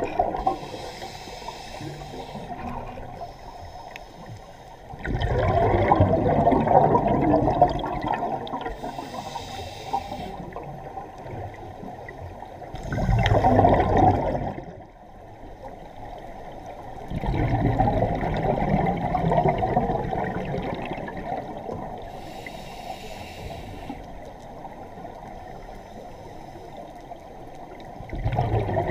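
Scuba diver breathing through a regulator underwater: short hissing inhales alternating with loud bubbling exhales, four exhales in all.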